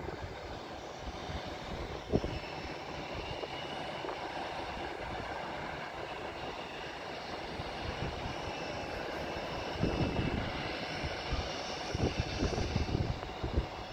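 Jet airliner engines running in the distance, a steady rushing noise with a faint high whine. Wind gusts buffet the microphone a few times, most near the end.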